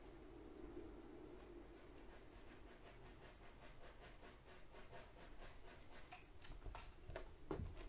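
Kittens playing on a cat tower: a run of faint quick clicks, about four a second, builds to a few louder knocks near the end, over a steady low hum.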